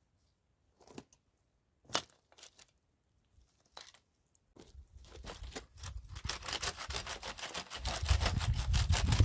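Stones knocked down onto a heap of dry brush, a few separate clacks, then dry twigs and branches crackling and snapping in a dense, quickening run that grows louder over the second half. A low rumble joins near the end.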